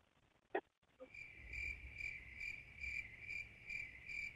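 Faint cricket chirping, starting about a second in: a high, even chirp repeating about twice a second.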